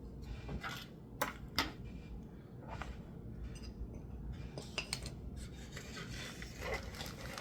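Small metal tools and parts handled on a workbench: a few sharp clicks and clinks, the two loudest a little over a second in, with soft rubbing and sliding between them.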